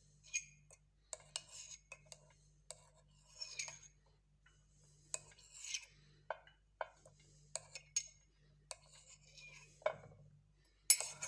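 A metal spoon scraping and tapping in a glass of lemon pulp: a scattered run of short scrapes and light clinks, with a louder clatter near the end.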